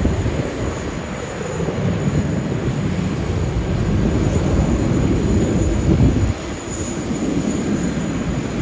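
Jet airliner's engines running as the aircraft turns on the ground, a steady rumbling noise that dips slightly about six seconds in.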